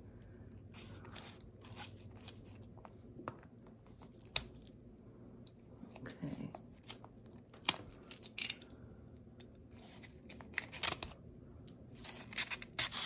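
Packaging being handled and opened by hand: irregular rustling and crinkling of plastic and paper with scattered light clicks, busiest near the end.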